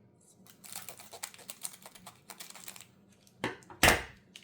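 Foil wrapper of a Pokémon TCG booster pack crinkling as it is handled and torn open: a dense run of small crackles, then two sharper, louder crackles near the end, the second the loudest.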